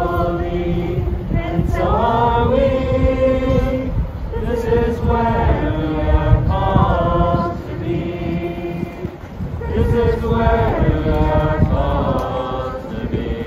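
A crowd of people singing together in long held notes, phrase after phrase, with a short lull about eight seconds in.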